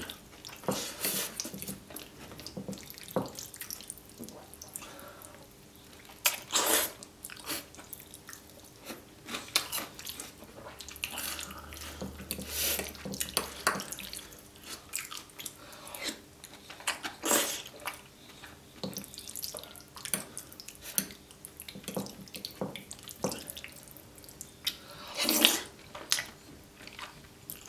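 Close-miked wet slurping and chewing of creamy carbonara fettuccine: a run of short, sharp mouth sounds, with three louder slurps, about a quarter of the way in, a little past halfway and near the end.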